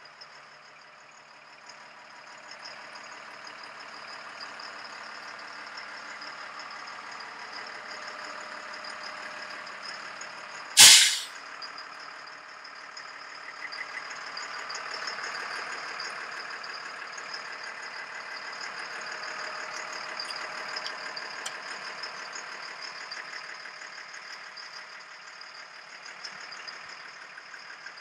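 The truck's Caterpillar 3116 diesel engine idling steadily. About eleven seconds in comes one sudden, loud hiss lasting under half a second.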